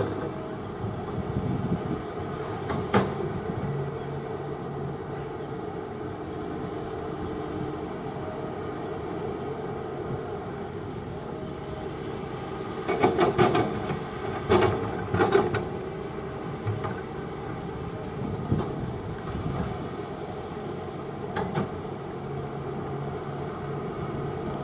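Kobelco hydraulic excavator running steadily with its diesel engine, with occasional metallic clanks and knocks and a loud cluster of them about halfway through.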